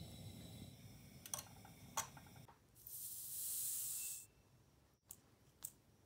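Liquid heating in a glass beaker over a gas stove burner: a low rumble with two sharp clinks. Then comes a loud hiss lasting about a second and a half, the loudest sound, and a couple of faint clicks near the end.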